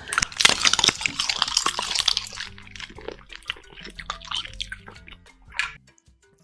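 Close-up wet eating sounds: a dense run of crackly, squishy chewing and smacking, loudest in the first two seconds and then sparser. Faint background music runs underneath.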